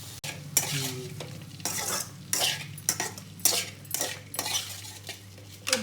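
Okra shallow-frying in a pan being stirred: a run of short scrapes of a utensil against the pan, two or three a second, over a light sizzle of frying oil.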